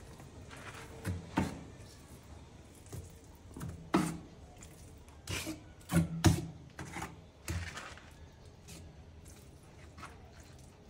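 Steel notched trowel scraping and combing cement tile adhesive across the back of a ceramic wall tile, with irregular scrapes and knocks a second or more apart.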